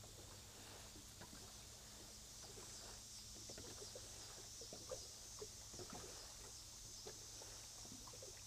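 Near silence: faint small slaps and taps of wake waves lapping against a small boat's hull, over a steady faint hiss.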